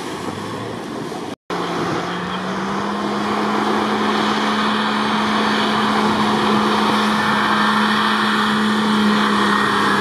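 Off-road 4x4 SUV engine held at high revs under full throttle, the pitch creeping slowly upward as it accelerates. Tyres churning through water and deep sand add a rushing noise. A brief dropout comes about a second and a half in.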